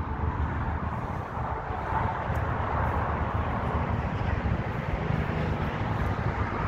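Steady low rumble of outdoor background noise with no single event standing out, swelling slightly a couple of seconds in.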